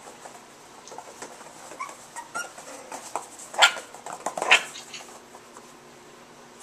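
Chinese Crested puppies at play: a short whine, then two sharp yips about three and a half and four and a half seconds in, over light scattered clicks.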